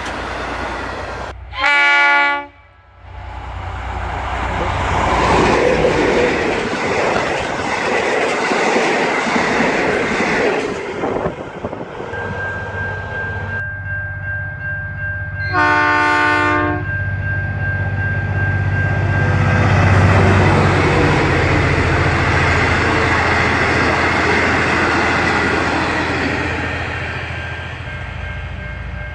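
Train horn sounding two short blasts, one about two seconds in and another about midway, over a passing train: a steady low engine drone with wheel and rail noise.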